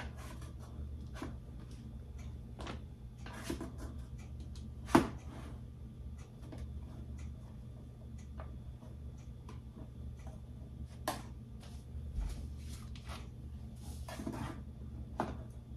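Knife slicing banana bread in a metal loaf pan: scattered soft scrapes and clicks, with a sharper knock about five seconds in and another about eleven seconds in, over a low steady hum.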